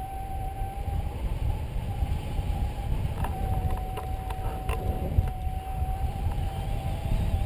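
Wind buffeting the camera microphone in flight under a tandem paraglider, a steady low rumble. A steady, slightly wavering high tone runs over it, with a few faint clicks about halfway through.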